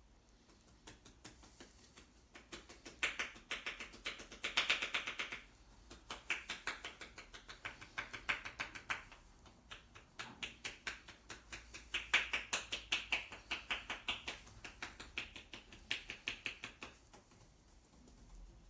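Percussive massage: hands rapidly tapping and chopping on the body in quick runs of sharp slaps, coming in bursts of one to three seconds with short pauses between.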